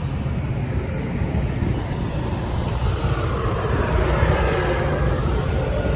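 A train passing: a steady low rumble, with a rushing noise that swells about halfway through.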